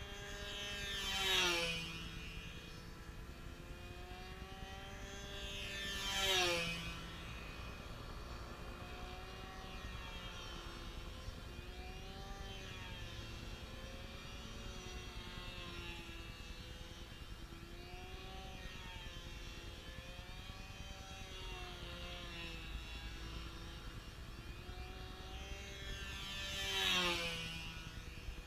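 Radio-controlled model airplane's motor and propeller droning as it circles, the pitch wavering. Three close, louder passes, about a second in, about six seconds in, and near the end, each with a sharp drop in pitch as it goes by.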